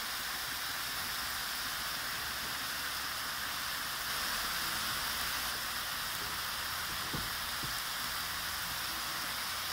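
Stir-fry sizzling in a hot wok, with raw shrimp just added to pork and carrot: a steady frying hiss that swells slightly about four seconds in.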